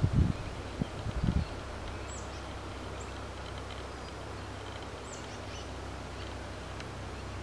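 Outdoor ambience: a steady low rumble with a few dull thumps in the first second and a half, and faint high bird chirps, a short falling note about two seconds in and again about five seconds in.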